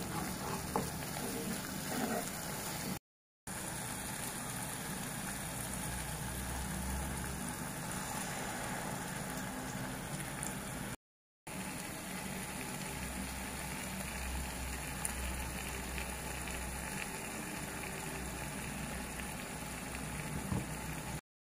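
Thick curry paste sizzling and bubbling in oil in a pot, a steady frying sound, with a few small scrapes of a wooden spatula stirring near the start.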